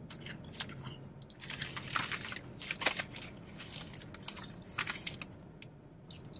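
Potato chips crunching as they are chewed close to the microphone, in a few clusters of crisp crackles with quieter gaps between.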